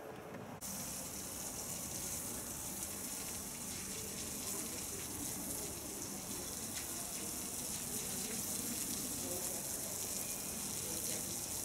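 Outdoor ambience: a steady high-pitched hiss with a low rumble beneath, starting suddenly about half a second in.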